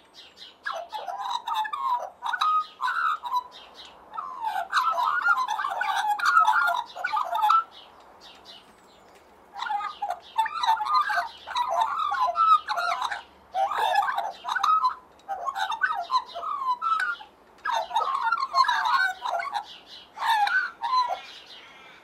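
Australian magpie singing: a melodious warbling song of quick, pitch-jumping phrases, each a second or two long, with a pause of over a second about eight seconds in.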